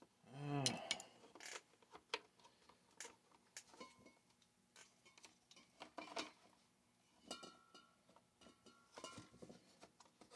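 Scattered light clicks and knocks of plastic and metal as a chainsaw's plastic top handle and shroud are fitted by hand with a screwdriver. A brief voice sound about half a second in is the loudest thing. Later come two short squeaks, first around the middle and again near the end.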